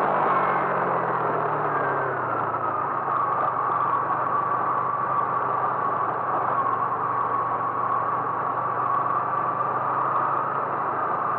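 A vehicle engine running under way. Its note falls over the first two seconds or so, then settles into a steady hum with a steady higher whine.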